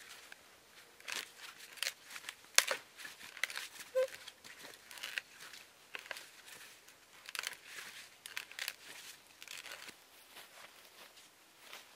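Irregular rustling and crinkling with scattered sharp clicks and snaps, the loudest snap about two and a half seconds in.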